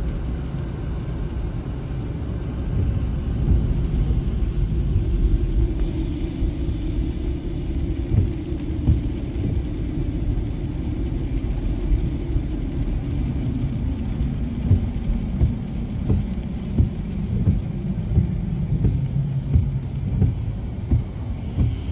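Car interior noise while driving on a wet road: a low engine and road rumble with a hum that falls in pitch in the second half, and occasional short thumps.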